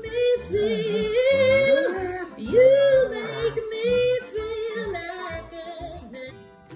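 A dog howls in a run of long, yodel-like notes that slide up and down in pitch. It fades out about six seconds in.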